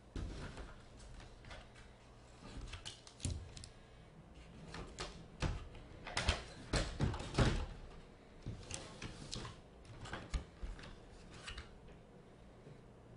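Scattered clicks, taps and light knocks of small objects being handled, busiest and loudest about six to seven and a half seconds in.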